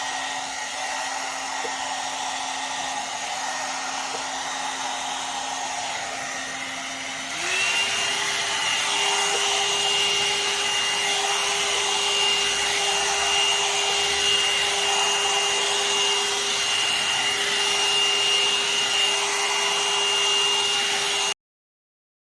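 HS Enterprise 1000-watt one-step hot air brush running, a steady motor whine over rushing air. About seven seconds in its pitch steps up and it gets louder. It cuts off suddenly near the end.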